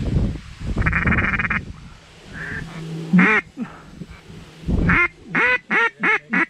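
Loud duck quacks: a single quack about three seconds in, then a quick run of four quacks near the end, over low wind rumble on the microphone.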